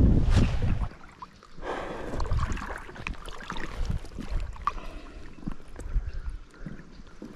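Shallow river water sloshing and trickling close by, with many small splashes. A loud rustle of sleeve and handling right at the microphone comes in the first second.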